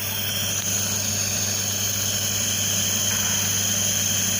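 Nebulizer compressor running for steam therapy against a cough: a steady hum with a hiss of air and mist, the hiss growing stronger about half a second in.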